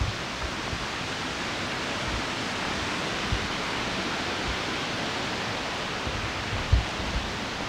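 Steady rush of falling water from a brook and its waterfalls, an even hiss with no change, with a few soft low thumps from walking.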